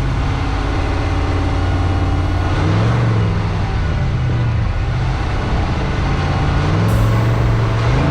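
Vehicle engine and road noise while driving. The engine note rises and falls as it picks up revs, about two and a half seconds in and again near the end.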